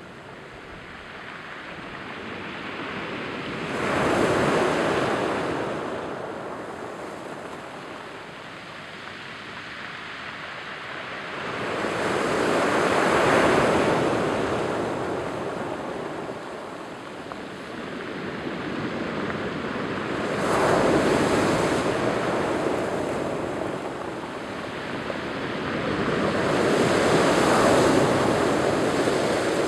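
Waves breaking on a cobble beach and washing in over the stones, four surges that each build to a loud rushing hiss and ebb away, about every eight seconds.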